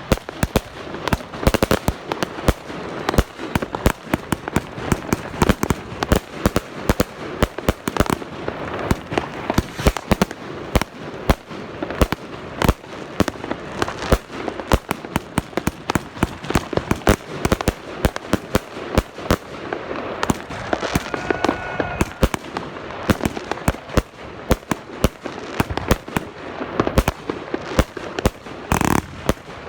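Fireworks and firecrackers going off in a dense, unbroken string of sharp bangs and crackles, several a second, with a louder, longer blast near the end.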